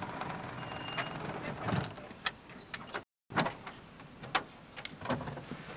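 Vehicle running, heard from inside the cabin, its noise fading about two seconds in. After a brief dropout, a few sharp clicks and knocks.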